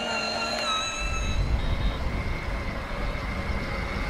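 Battery-powered ride-on toy car driving: a high whine in the first second or so, then a steady low rumble for the rest.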